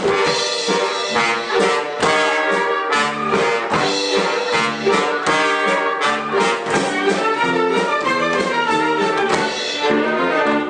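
Live theatre orchestra playing a lively passage of quick, short notes, with brass prominent.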